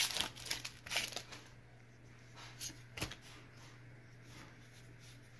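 A Pokémon card booster pack being handled and opened, cards slid out of its foil wrapper: crisp crinkling and rustling, busiest in the first second and a half, then faint handling with one sharp snap about three seconds in.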